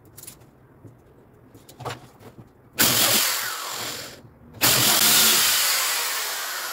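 Corded electric drill boring a hole through a eucalyptus wood batten, run in two bursts: a short one about three seconds in, then after a brief pause a longer one that gradually tails off before stopping near the end. Before that, faint clicks of the wood being handled.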